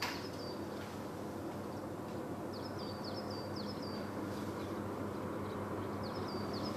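Diesel train engine running with a steady low hum that grows slightly louder. Over it, a short high chirping phrase repeats about every three seconds, and there is a single click right at the start.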